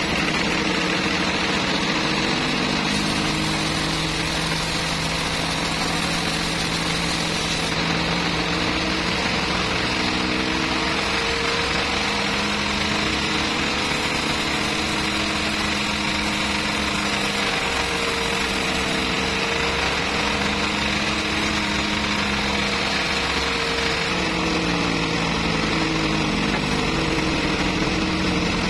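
Band sawmill running steadily, its blade cutting lengthwise through a large trembesi (rain tree) log, with the machine's drive humming underneath.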